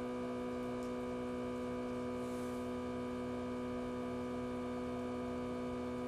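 Steady electrical hum: one strong low tone with several fainter higher tones above it, all held unchanged.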